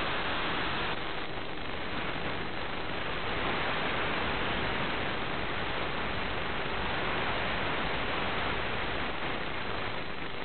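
Steady static hiss from an analog FPV video receiver's audio channel, rising a little a few seconds in. It is the noise of a weakening analog video link, with no other sound in it.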